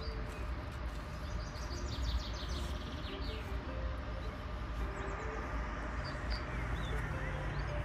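Outdoor ambience: a steady low rumble with faint bird chirps scattered through it and a short trill about two seconds in.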